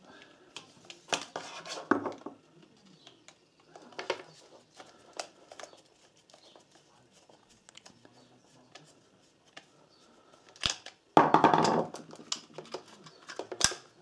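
A Phillips PH2 screwdriver turning out the screws of a plastic site plug cover: scattered small clicks and ticks of the bit and plastic, with a louder rustle lasting under a second about eleven seconds in.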